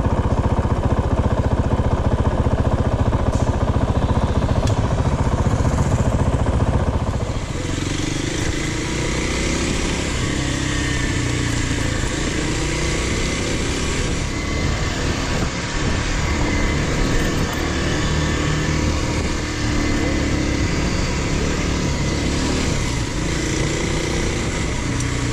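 Dual-sport motorcycle engine running while riding, under a loud low rushing noise for the first seven seconds or so. The rushing then drops away, leaving the engine note rising and falling with the throttle.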